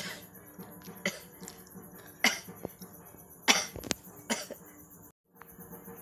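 A woman's short, sharp sneezes and sniffs, several in a row with the loudest about two and three and a half seconds in. They are set off by tickling the inside of her nostril with a thin stick.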